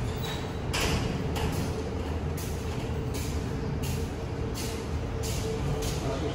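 Walking footsteps with rustle on a handheld camera: a short hissing scuff about every 0.7 seconds over a steady low background hum.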